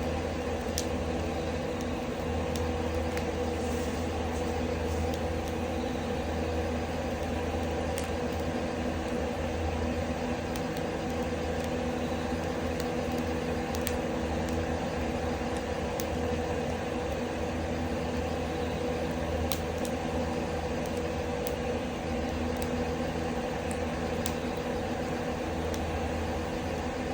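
Loud ceiling exhaust fan drawing wood smoke out of a glamping tent, a steady droning hum that buries the fire, with a few faint sharp pops from the burning firewood now and then.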